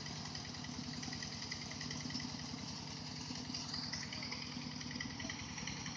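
Rice combine harvester's diesel engine running steadily, with a fast even beat.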